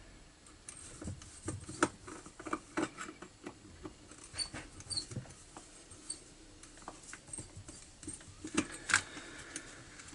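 Irregular small metal clicks and knocks, with a few faint high squeaks, as a heat-loosened, threadlocked muffler side screw on a chainsaw is turned out by hand with a socket. The screw is seized and comes out hard.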